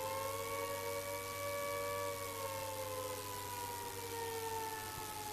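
Civil defence siren wailing, its pitch rising a little over the first two seconds and then slowly falling, over a steady low hum.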